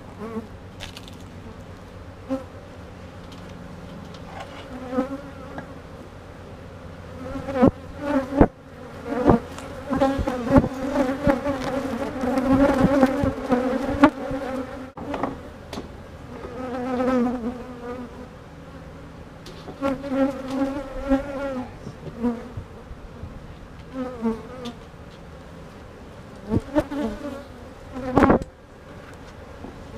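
Honey bees buzzing around an opened hive, the pitch wavering and swelling as bees fly close past, with a few sharp knocks.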